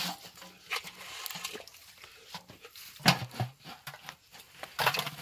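Small wet fish being scooped by hand and tipped from a metal pan into an aluminium pot: scattered slaps and rattles, with sharper clatters about three seconds in and again near the end.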